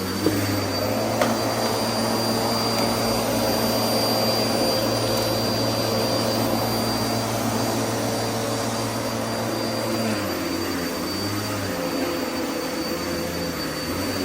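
Vacuum cleaner running steadily, with a constant high whine over the motor's hum. It gives two brief knocks near the start, and its low hum shifts and wavers about ten seconds in.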